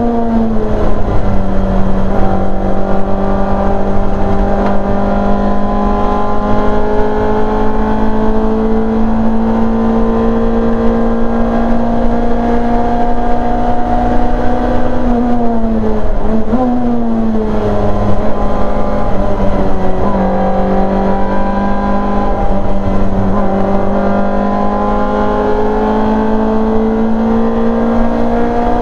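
Rear-engined Simca race car's four-cylinder engine, heard from inside the cockpit, running hard at high revs. Its pitch climbs slowly through each gear, with gear changes dropping the revs just after the start and about 16 to 17 seconds in.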